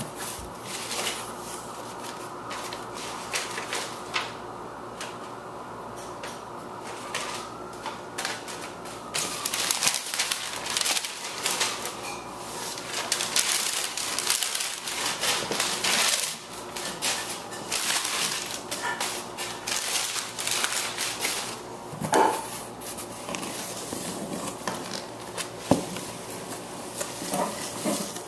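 Plastic packaging and toy parts being handled during an unboxing: irregular clicks and crinkling, thickest through the middle stretch, over a faint steady hum.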